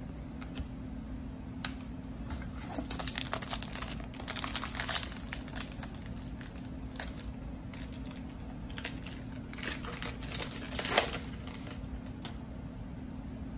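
Foil wrapper of a Donruss Optic trading card pack crinkling as it is handled and torn open, in several bursts, the loudest near the end.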